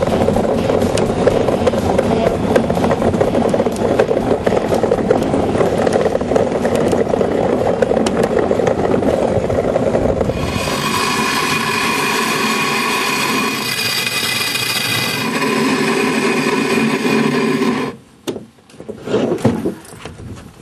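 Ice yacht runners rumbling and scraping over the ice at speed, a rough rattling noise full of small clicks. About ten seconds in, it changes to a steadier hum with several pitches, and it drops away sharply near the end.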